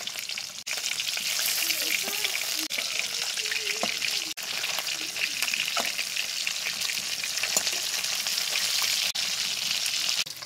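Climbing perch frying in hot mustard oil in a metal kadai: a steady crackling sizzle full of small pops, with a metal spatula stirring and turning the fish. The sizzle breaks off for a moment a few times.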